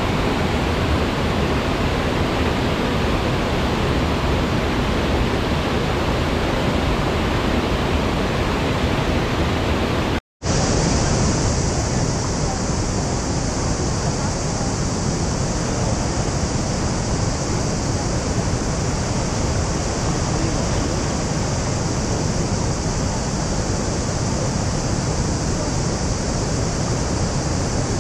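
Waterfall water rushing in a steady, dense wash of noise. About ten seconds in it cuts out for an instant and comes back hissier.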